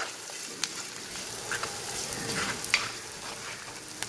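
Chopped onions and green chillies sizzling in oil in a black pot as a wooden spatula stirs them, with a few sharp knocks of the spatula against the pot. The onions are still softening, not yet golden.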